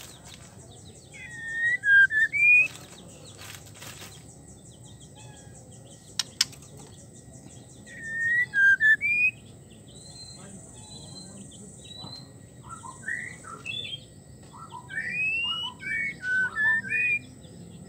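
White-rumped shama whistling: a phrase of sliding whistles about a second in, another near eight seconds, then a quicker run of short rising notes in the last third. A single sharp click comes about six seconds in.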